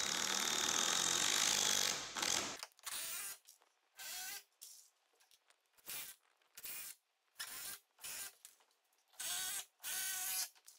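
Cordless drill running steadily with its bit boring pilot holes into a wooden stair tread for about two and a half seconds, then about a dozen short spurts as the drill is triggered briefly again and again.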